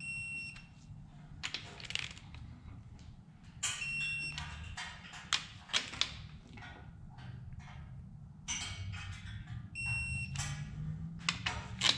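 Three short high electronic beeps, about four to six seconds apart, from a digital torque wrench signalling that each cylinder head bolt on a 289 Ford small-block has reached the set torque of 68 ft-lb. Between the beeps the wrench's ratchet clicks and rattles as the next bolt is pulled down.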